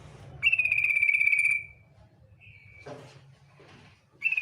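Female yellow-vented bulbul (trucukan) giving its rapid rattling 'ngetir' trill: a buzzy chatter of fast pulses, slightly falling in pitch and lasting about a second, starting about half a second in. A shorter, softer note follows, and a second trill begins near the end.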